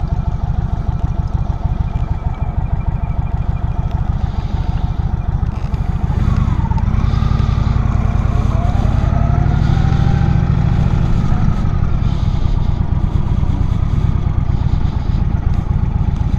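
Indian Chief Vintage motorcycle's air-cooled V-twin engine running on the move, getting louder about six seconds in as the rider pulls up the road to the headland.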